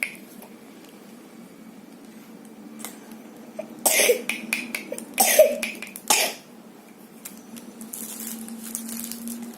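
A child coughing three times, in short bursts about a second apart, starting about four seconds in.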